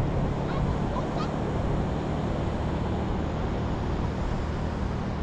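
Ocean surf washing onto a sandy beach, a steady rush of noise, with wind buffeting the microphone.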